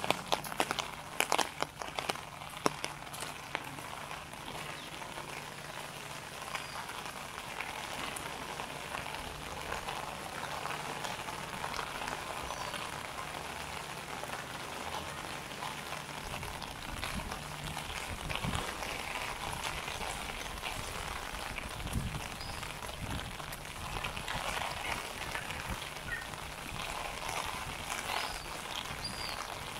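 Rain falling steadily on wet surfaces, a continuous hiss with sharp drip ticks in the first few seconds. A low rumble comes in about halfway through, and a few short, high bird chirps sound near the end.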